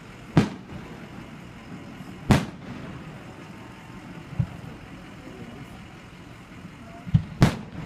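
Aerial fireworks shells bursting: about five bangs at irregular spacing, the loudest about two seconds in and two in quick succession near the end, over steady background noise.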